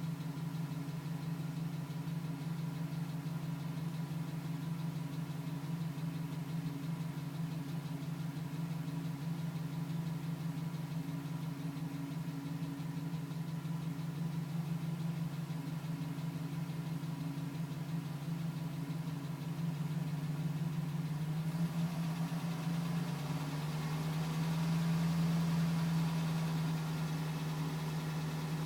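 2010 GMC Sierra pickup engine idling steadily while still cold, with a light tapping that the owner suspects is piston slap. Near the end the idle note shifts slightly higher and a hiss rises.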